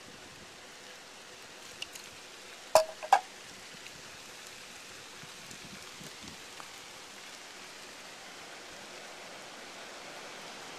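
Steady rain falling, with two sharp knocks in quick succession about three seconds in.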